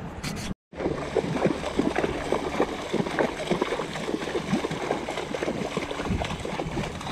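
Horses' hooves splashing as they wade through shallow seawater at the shoreline, in quick, irregular splashes after a brief cut-out near the start.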